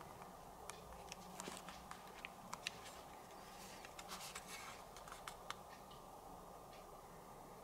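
Faint, scattered small clicks and taps as the Audio-Technica ATH-AR3BT headphones are handled, mostly in the first five seconds or so, over a low steady hum.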